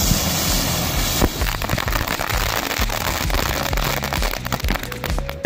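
Several ground bloom flower spinner fireworks spin with a loud, steady hiss of spraying sparks. About a second in, this breaks into a rapid scatter of sharp cracks and pops as the spinners reach their bang finish. Background music plays underneath.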